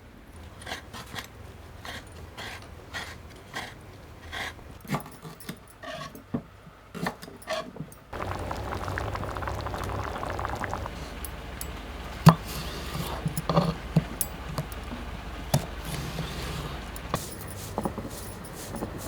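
A run of light clinks and knocks, as of cooking utensils being handled. About eight seconds in, the background changes suddenly to a steadier low hum, with scattered sharp knocks.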